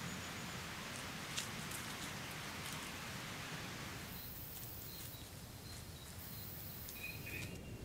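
Outdoor field ambience: a steady hiss like rain or wind in foliage, with a few faint rustles and clicks. About four seconds in it gives way to a quieter night ambience with thin, high, steady tones, likely insects.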